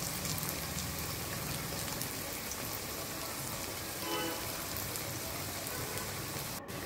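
Hot oil sizzling steadily in a kadai as slices of potato-filled dough rolls fry, with a fine crackling hiss.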